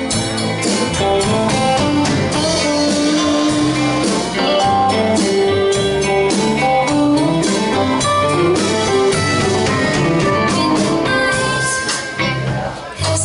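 Live band music: electric guitars, bass and a drum kit playing a steady beat.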